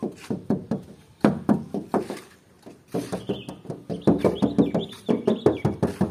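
Hand tapping repeatedly on the steel door and side panels of a 2001 Daihatsu Espass van: quick runs of short knocks with a brief hollow ring, and a pause about two seconds in. The tapping shows the body panels are sound, original and free of rust.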